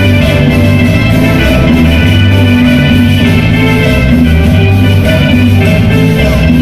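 Dance music played very loudly over a sonidero sound system, with a heavy bass and a steady beat.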